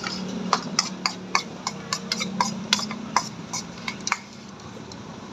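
Quick, irregular metal clicks and knocks as a wire-mesh noodle basket is worked in a large pot of boiling water and knocked against the pot, stopping about four seconds in; a steady low hum runs underneath.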